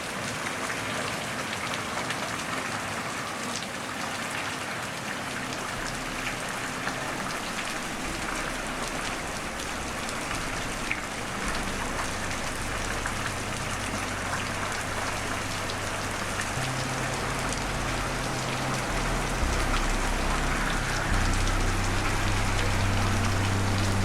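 Steady rain falling, with a dense patter of individual drops hitting a surface. A low rumble comes in underneath and grows louder through the second half.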